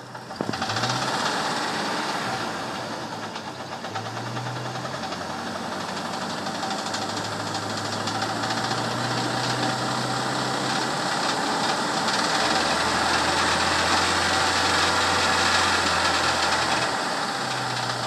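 1998 Jeep Wrangler TJ's 2.5-litre four-cylinder engine revved up about half a second in and held at raised speed, easing off near the end, with a knocking that the owner can't place (lifter noise, piston slap or engine knock) and that an oil stabilizer has not cured.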